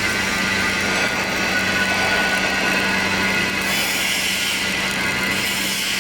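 Steady hum with an even hiss from automatic pipe welding equipment running.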